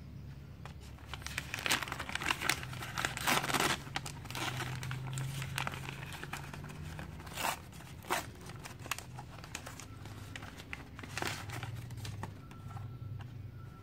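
A printed paper flyer crinkling and tearing as it is unwrapped by hand from a carded die-cast toy car. It is densest in the first few seconds, then comes in scattered crinkles.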